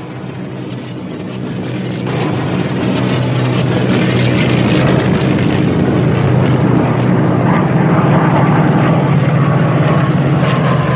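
Piston-engine propeller aircraft droning steadily in flight, growing louder over the first few seconds.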